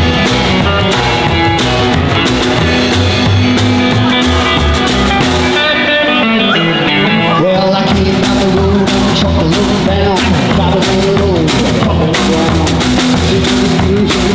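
Rockabilly band playing live: electric guitar, upright double bass and drum kit keeping a steady beat.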